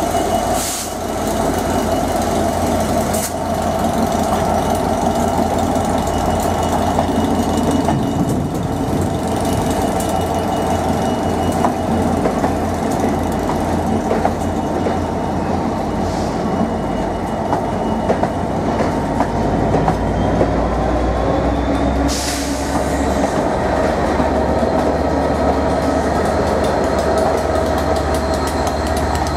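Class 67 diesel-electric locomotives running as a loco-hauled train moves slowly past: a steady engine drone with a held whine over it, and wheels on the rails with a few sharp clacks, about a second in, about three seconds in, and once near the end.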